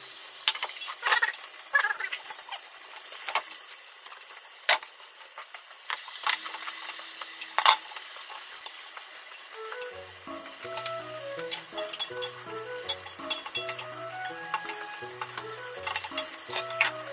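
Beaten egg sizzling in a rectangular tamagoyaki pan, with long chopsticks clicking and scraping against the pan as the egg is stirred and folded. Near the end a slotted metal spatula scrapes the pan as the omelette is rolled.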